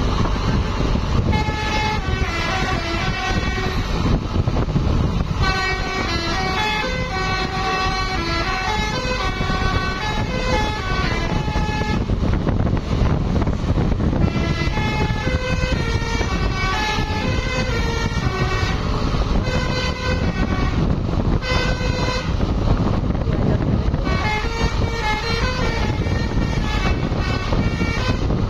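A tour bus's 'telolet' multi-tone air horn plays quick melodic runs of notes, stepping from pitch to pitch and pausing a few times, over the steady low rumble of the bus's engine and road noise.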